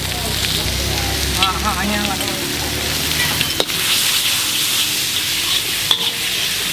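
Noodles sizzling as they are stir-fried in a wok over a charcoal fire, with a steady hiss of frying, stirring and scraping, and two sharp knocks, one a little past the middle and one near the end.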